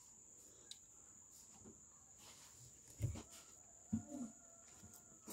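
Steady high-pitched insect buzz in the background, with a thump about three seconds in and a short low sound about a second later.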